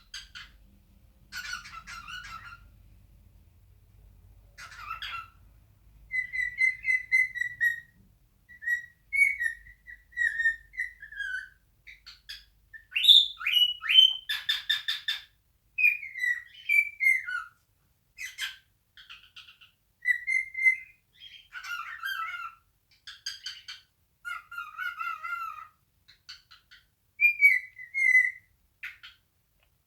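Male cockatiel singing its natural song: a string of short whistled phrases, many of them wavering or falling, broken up by short scratchy chatter notes. The loudest notes are sharp rising whistles about halfway through.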